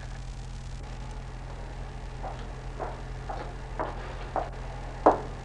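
Steady low hum under a series of light knocks or taps, about two a second, starting about two seconds in, with one louder knock near the end.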